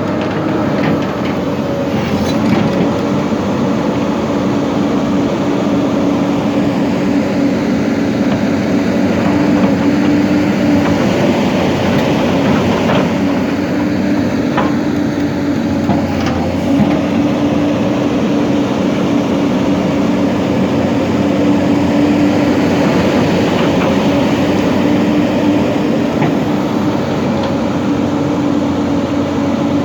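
Hyundai excavator's diesel engine running steadily with a strong hum; its pitch sags briefly about halfway through, when a few faint knocks are heard.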